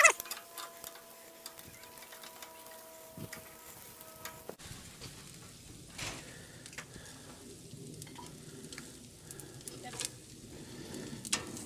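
Pork ribs sizzling on a gas grill, with scattered clicks of metal tongs as the ribs are moved. The sizzle gets louder about four and a half seconds in.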